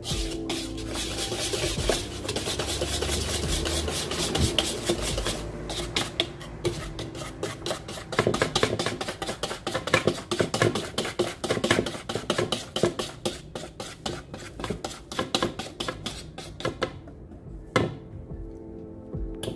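Wire balloon whisk mixing dry flour, salt and sugar in a bowl: a rapid scratchy rasping of the wires through the flour and against the bowl, thinning out near the end with a single knock.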